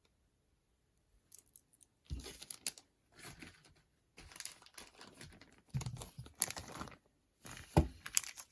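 Packaging crinkling and rustling in irregular bursts as it is handled and opened, with a sharp click near the end.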